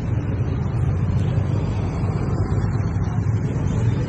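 Steady low rumble of a motor vehicle's engine and road noise, running evenly with no sudden changes.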